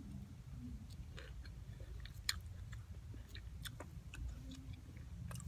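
A person chewing raw calamansi fruit close to the microphone: scattered small wet clicks and crunches from the mouth, over a low steady hum.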